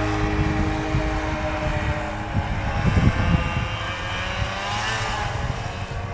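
Snowmobile engine running under throttle, with its pitch rising about halfway through.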